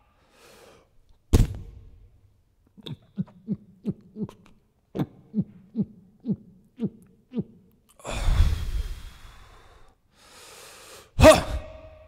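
A man's voice making wordless sounds: a sharp exhalation, then a run of about a dozen short grunts, each dropping in pitch, roughly two a second, then a long breathy gasp, and a loud shouted "Ha!" near the end.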